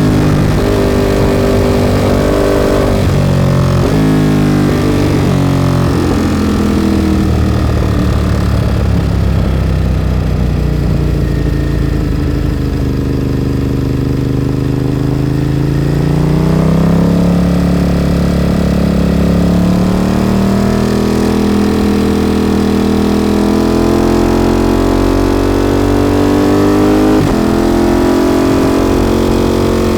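Ducati motorcycle engine through a Termignoni exhaust, being ridden: a few quick gear changes at first, then the revs fall slowly for several seconds before climbing again, holding, and climbing once more.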